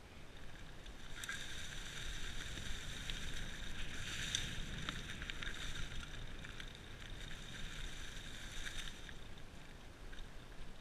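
Mountain bike rolling down a dirt singletrack covered in dry leaves: tyre and rolling noise throughout, with a steady high buzzing rattle from the bike from about a second in that stops near the end.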